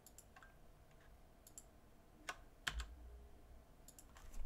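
Faint, scattered clicks of a computer mouse and keyboard, a handful of single clicks spaced irregularly a second or so apart.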